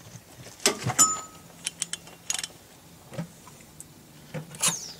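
Irregular metallic clinks and knocks of a drift against a truck's rear-axle spindle nut, nudging it a fraction of a turn so the lock key drops into place. One knock about a second in rings briefly.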